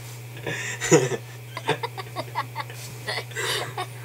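Laughter: breathy bursts, then a quick run of short 'ha-ha' pulses about five a second, over a steady low hum.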